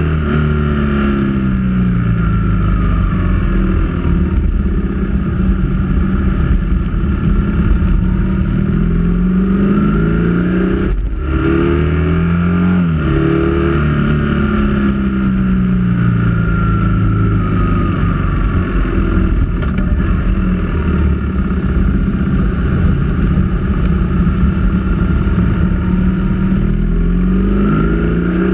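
Motorcycle engine heard from the bike itself while riding at speed, its pitch climbing and falling again and again as the rider accelerates, shifts and eases off through curves. There is a brief break in the engine sound about a third of the way in.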